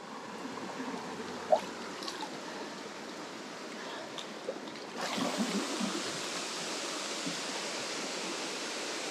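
Shallow mountain stream running over stones, with a few faint knocks and splashes in the first seconds. About five seconds in, it changes abruptly to the louder, hissier rush of a small waterfall.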